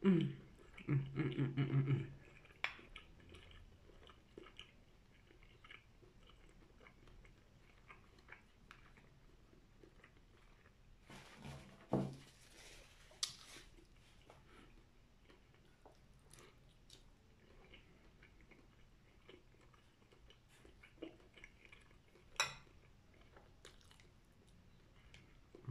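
A person chewing and biting into chicken with quiet mouth sounds, starting with a brief hummed vocal sound. A few sharp clicks and knocks come in between, the loudest about 22 seconds in.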